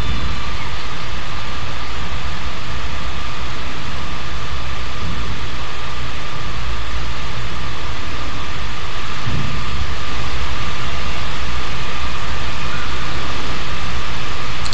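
Loud, steady static hiss with a thin steady tone running through it: the noise bed of a live EVP (electronic voice phenomenon) session.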